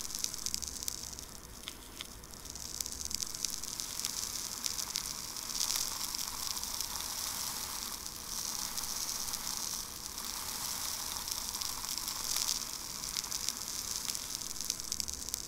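A crackling hiss, strongest in the high range, that swells and fades in slow waves every few seconds, with two faint clicks about two seconds in.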